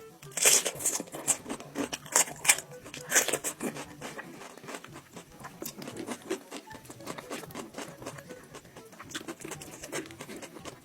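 Close-miked eating sounds: chewing and pulling meat from a goat's head, a dense run of wet clicks and crackles, loudest in the first three or four seconds.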